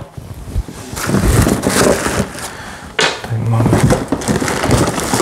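Plastic bubble wrap and a cardboard box rustling and crinkling as packing is handled, with a sharp knock about three seconds in.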